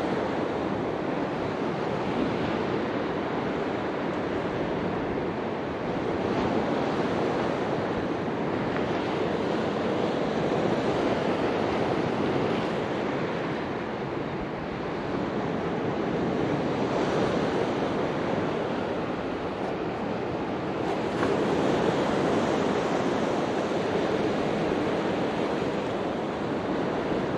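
Ocean surf washing onto a beach, a steady rush that swells and eases every few seconds as waves break, with some wind on the microphone.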